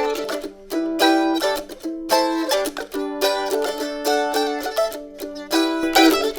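Mandolin picking a melody line in an instrumental break between sung verses of an old gospel hymn, in a quick run of bright plucked notes.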